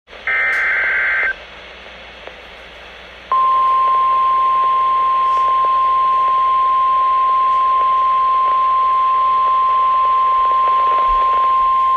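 NOAA Weather Radio emergency alert over a radio receiver with background hiss. It opens with a one-second warbling SAME digital header data burst. About two seconds of static follow, then from about three seconds in the steady single-pitch warning alarm tone, which signals that an alert message is about to be read.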